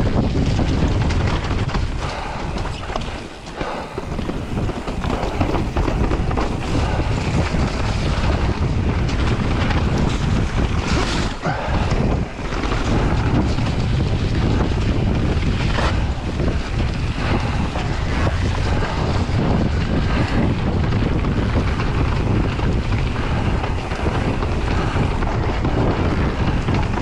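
Wind buffeting a camera microphone while riding a mountain bike on a trail, with a steady low rumble and scattered short knocks from the bike rolling over rough ground.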